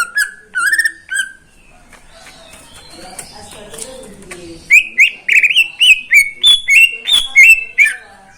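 A green leafbird (cucak ijo) singing loud, rapid runs of sharp whistled notes. It breaks off after about a second and comes back strongly about five seconds in.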